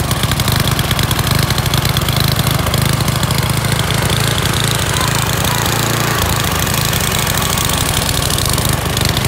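Gas-powered two-stage snowblower's small engine running steadily with a fast, even putter.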